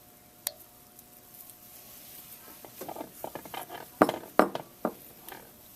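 Hands sorting and handling bundles of plastic baler twine: a single click, then from about halfway an irregular run of light knocks and clatter that gets louder, with the sharpest knocks near the end.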